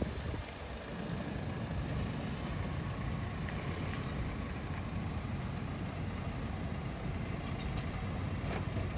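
Steady low rumble of motor-vehicle noise with no clear engine note, even throughout, with a few faint clicks near the end.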